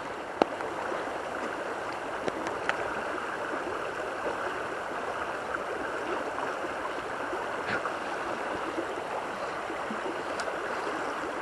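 River current running steadily, a continuous rush of flowing water, with a few short sharp clicks, the loudest just after the start.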